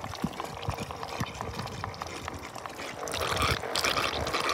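Meltwater trickling and pouring from the hose of a small electric bottle-top water pump draining a cooler, with scattered light clicks and knocks; the pouring gets louder about three seconds in.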